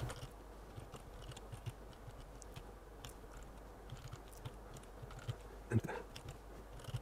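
Faint, irregular clicks and taps of a computer keyboard and mouse, with one slightly louder tap near the end, over a low steady hum.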